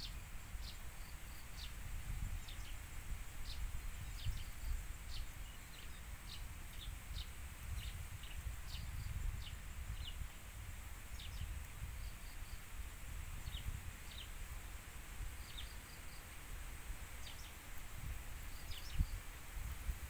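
Wind rumbling on the microphone in uneven gusts, with small birds chirping in short calls about once a second.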